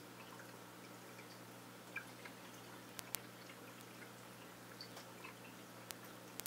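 Quiet aquarium tank sounds: a steady low hum with faint trickling water, broken by a few sharp ticks, two of them close together about three seconds in and another near the end.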